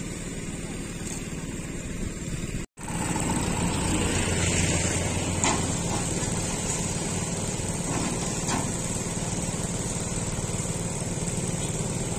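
Diesel engine of an Iseki combine harvester running steadily on the back of a truck, cutting out briefly and coming back louder about three seconds in. A couple of light knocks come from the steel loading ramps being set against the truck bed.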